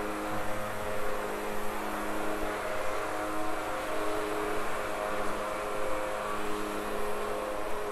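Construction machinery running in the background: a steady mechanical hum with shifting higher tones over a rushing noise.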